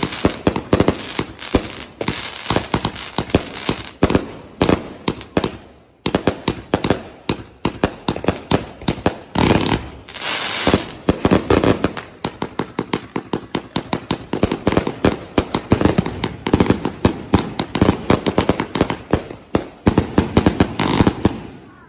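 Nuclear Man 267-shot firework cake firing in rapid volleys, many bangs a second from launches and aerial bursts. The firing thins out about five seconds in, with a hissing stretch about ten seconds in, then stays dense until it falls away just before the end.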